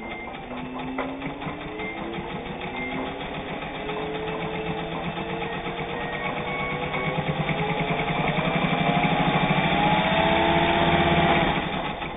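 Singer 201 sewing machine, with its built-in can-type motor and all-steel gear drive, stitching two layers of lightweight shirting. It speeds up steadily from slow to fast, the hum rising in pitch and getting louder, then stops abruptly near the end.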